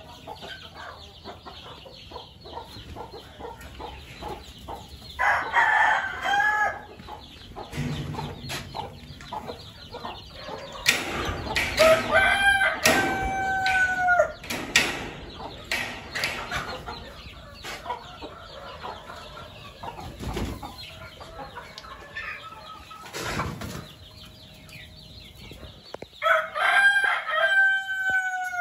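Kadaknath and Aseel country-chicken roosters crowing about four times, over the steady clucking of a flock of hens. Scattered short knocks and clatter come mostly in the middle.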